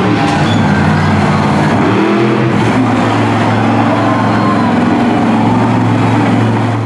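Monster truck engine running loud at high revs, its pitch swelling up and down with the throttle in a couple of rises, with steadier running in between.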